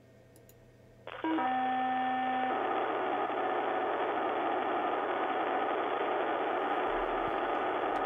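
POCSAG pager data burst heard as audio: about a second in, a few steady tones sound, then from about two and a half seconds a dense, harsh digital buzz of paging data carries on unbroken.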